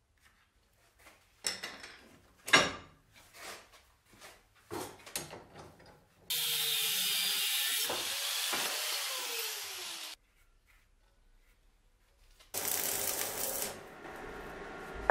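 Metal tools knocked and clicked as they are handled. Then an angle grinder with a thin cutting disc cuts into a steel plate for about four seconds and stops abruptly. After a short pause, an arc-welding crackle starts about two and a half seconds before the end.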